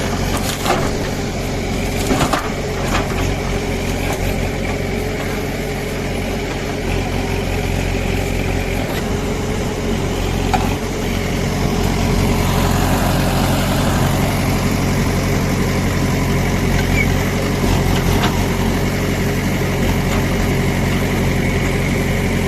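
JCB 3DX backhoe loader's diesel engine running steadily, with a few short knocks in the first seconds. It gets louder about halfway through.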